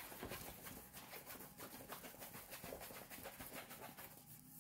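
Faint rustling and crackling of a stiff diamond-painting canvas being handled and rolled back the opposite way. The small crackles come in a quick, uneven run and die down near the end.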